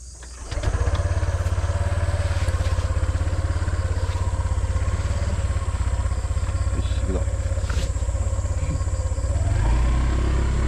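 Motorcycle engine coming in loud about half a second in and running with a steady low pulse as the bike moves off. It gets louder near the end as it picks up speed.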